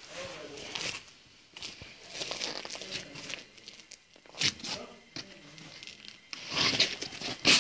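A Cane Corso biting and mouthing a worn, cracked leather football, its teeth crackling and scraping on the peeling panels in irregular bursts, with louder crunches about halfway through and near the end.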